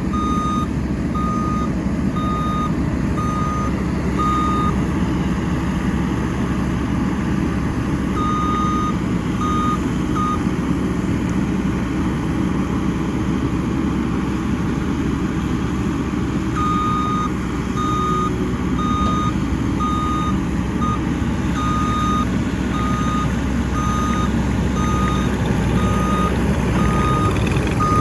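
New Holland C232 compact track loader running steadily, its diesel engine a low drone, while its backup alarm beeps in three runs as the machine reverses, pausing for a few seconds in between.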